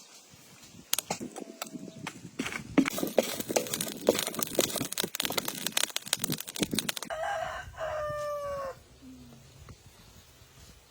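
Several seconds of rustling and knocking, then a rooster crows once, a call of about a second and a half that drops in pitch at the end.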